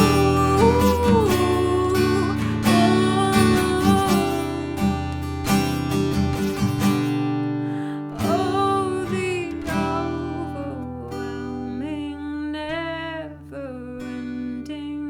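Strummed acoustic guitar with a voice singing a wavering, wordless melody over it; the playing thins out and grows quieter about halfway through.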